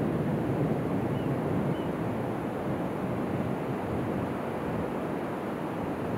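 Ocean surf breaking and washing up a sandy beach, a steady rush of waves, with some wind noise on the microphone.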